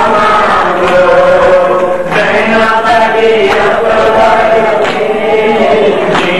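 A group of men chanting a noha, an Urdu Shia lament, in unison, led by a reciter on a microphone, with the slaps of hands beating on chests (matam) under the singing.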